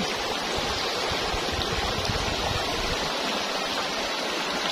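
Shallow river water rushing steadily over rocks in a riffle.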